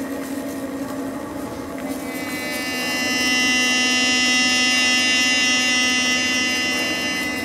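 A sustained free-reed drone held on one low note. About two seconds in, a brighter, buzzy layer of many high overtones swells in and holds until it eases off near the end.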